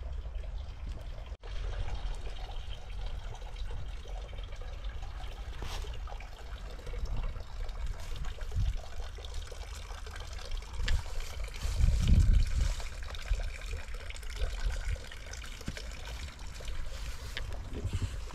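Water trickling and splashing, over a steady low rumble that swells about twelve seconds in.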